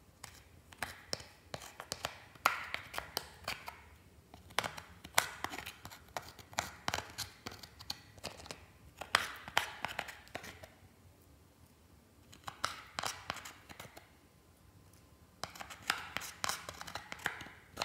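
A metal spatula tool scraping and digging pressed eyeshadow out of a palette's pans, making crisp scratching and crackling as the powder breaks up. The scraping comes in five bursts with short pauses between them.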